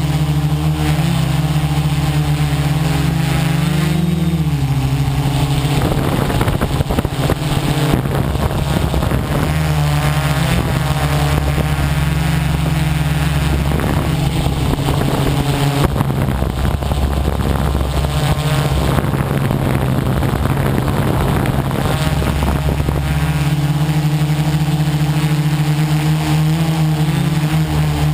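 Quadcopter's electric motors and propellers running, a steady pitched buzz that wavers as the throttle changes. For most of the middle stretch it turns rough and gusty before settling back to a steady buzz near the end.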